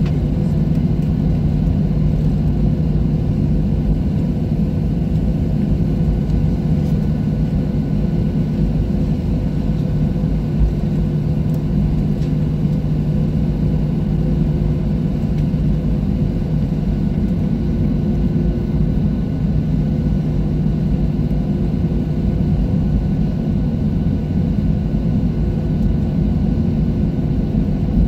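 Steady deep drone of a Boeing 737-700's CFM56-7B jet engines and airflow heard inside the cabin, with a few constant hums running through it and no change in pitch or level.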